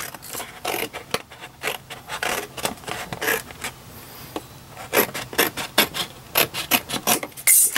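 Scissors cutting through thin cereal-box cardboard: a run of short, crisp snips, coming faster in the second half.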